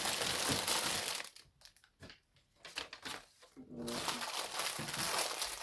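Packaging crinkling and rustling as it is handled, in two spells with a quieter, broken-up stretch in the middle.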